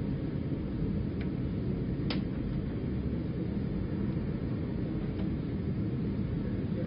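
Steady low rumbling room noise, with a faint click about two seconds in.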